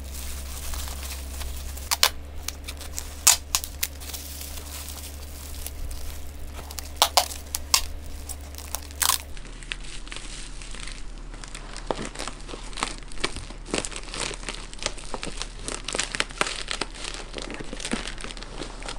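Plastic bubble wrap and air-column packing crinkling and rustling as a camera lens is wrapped, with several sharp rips of brown packing tape pulled off the roll, loudest in the first half.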